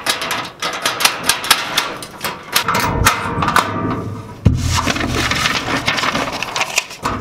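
Rapid clicking and rattling of a metal school locker's latch being worked, then the locker opening, with a sharp knock about four and a half seconds in.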